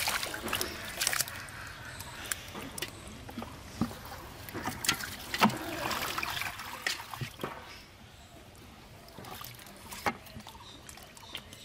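Bare hands digging and scooping in soft wet mud: squelches, splashes and short wet slaps come irregularly, growing sparser and quieter after about eight seconds.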